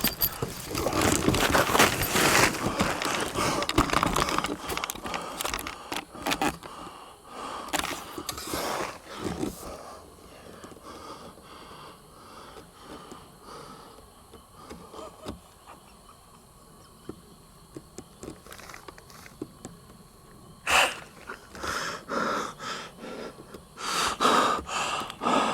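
A man's heavy breathing close to the microphone, mixed with rustling and handling noise. It is loud for the first several seconds, quieter in the middle, then comes back as sharp breaths and rustles near the end.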